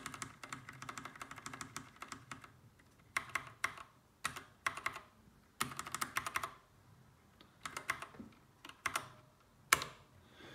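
Keystrokes on a backlit Bluetooth mechanical keyboard: a quick run of clicking keys at first, then short groups of key presses about a second apart, with one sharper click near the end.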